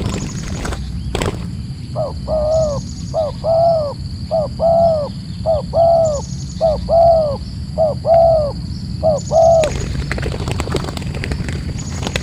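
A dove cooing: seven paired phrases, each a short note followed by a longer arched coo, about one pair a second, over a steady low rumble.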